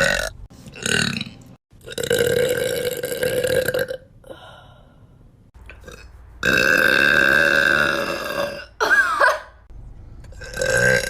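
A person belching: two short burps, then two long, drawn-out burps of about two seconds each, with shorter burps near the end.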